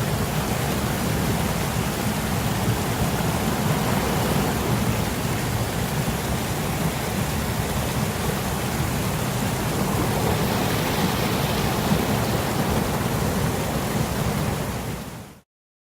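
Steady rushing noise of running water, with no pitch or rhythm, cutting off abruptly near the end.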